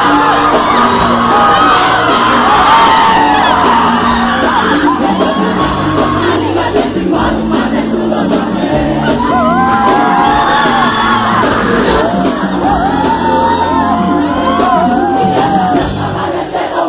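Live band playing a pop song with a lead voice singing, over a crowd shouting and cheering in a large hall.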